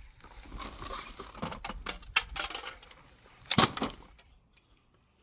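A hairdryer being smashed apart: a run of clattering knocks and cracks, with one loud strike about three and a half seconds in.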